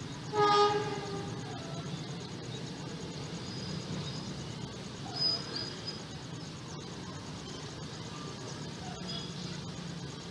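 A horn sounds once, a single buzzy tone about a second long, soon after the start, over a steady low rumble. A few faint high chirps follow, the clearest about five seconds in.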